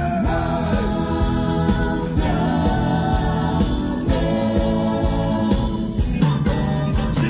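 A live band playing: electric guitars, bass, drums and saxophone, with a voice singing over them.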